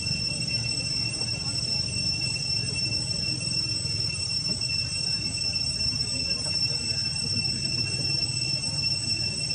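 Insects droning continuously in the forest, a steady high-pitched whine that never breaks, over a steady low rumble.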